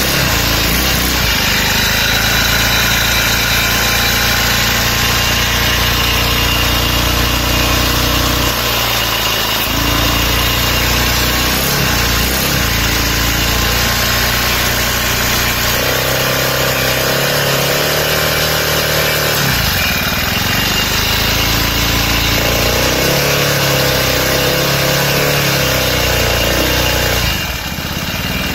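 50cc four-stroke engine running steadily on hydrogen gas with its air intake blocked off. Its note changes several times as the carburettor is worked by hand, with higher-pitched stretches in the second half and a brief drop in level near the end.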